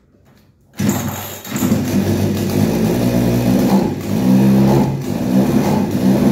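Chinese 52cc two-stroke chainsaw engine starting up about a second in, then running at an unsteady idle. Its high-speed carburettor screw is still closed with the low-speed screw open a turn and a half, the setting in which it idles but dies when the throttle is opened.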